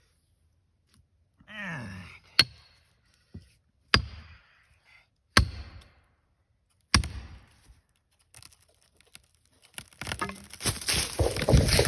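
Four sharp hammer blows with a metallic ring, about a second and a half apart, driving a felling wedge into the cut of a red oak while the chainsaw is off. From about eight seconds in, the trunk starts cracking, building into a loud crashing as the tree begins to fall.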